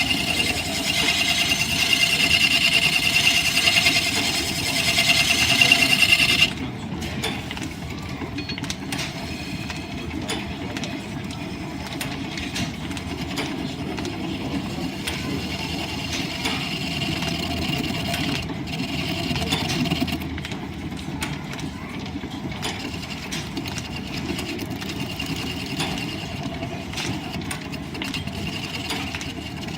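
Line-shaft driven wood lathe running, with a turning tool cutting the spinning wood: a loud hissing cut for about the first six seconds that stops suddenly, then the steady running of the lathe and line-shaft belting, with lighter cuts now and then.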